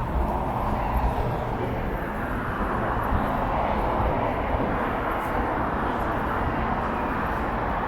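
Steady city street noise: a continuous wash of passing traffic.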